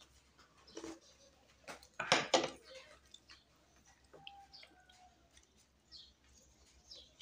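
A person slurping hot sinigang broth from a glass bowl, a short slurp about a second in and two louder ones about two seconds in, then soft wet chewing and lip-smacking.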